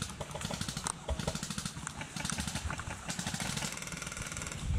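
Airsoft electric guns (AEGs) firing full-auto: a rapid, even run of shots with the buzz of the gearbox.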